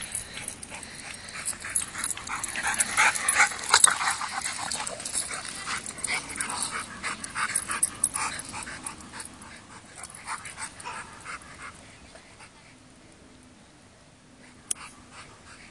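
Two dogs play-wrestling, making a rapid string of short vocal sounds and breaths, busiest and loudest in the first half and dying down toward the end.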